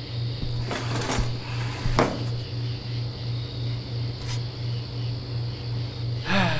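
A few sharp knocks and clinks of kitchenware being handled, over a low pulsing hum.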